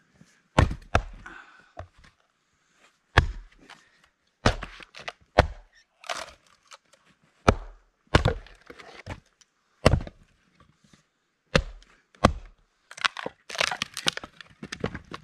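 Two heavy vintage axes, a 4-pound Craftsman Hytest and a Plumb Rockaway, chopping into firewood rounds: sharp cracks as the axe heads strike and the wood splits, about one blow a second at an uneven pace. A quicker clatter of knocks comes near the end.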